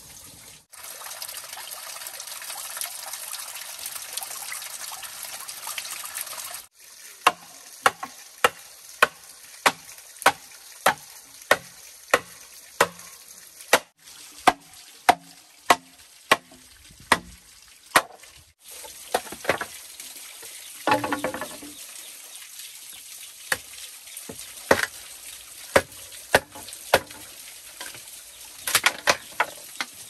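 A steady rushing hiss for the first several seconds, then a machete chopping a bamboo pole: sharp, evenly spaced strikes close to two a second. After these come scattered knocks and clatter of bamboo being split and handled over a background hiss.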